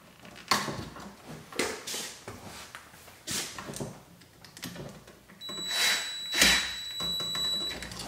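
Clicks and taps of pliers and copper wire being worked on a duplex receptacle's terminal. Then, about five seconds in, a DeWalt cordless driver runs with a steady whine for about two seconds, turning down a terminal screw on the receptacle.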